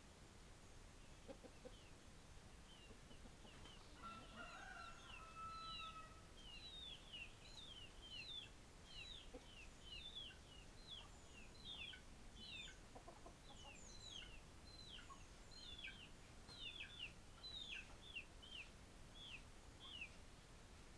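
Chickens calling faintly: a drawn-out call about four seconds in, then a long run of short, high, falling chirps, about two a second.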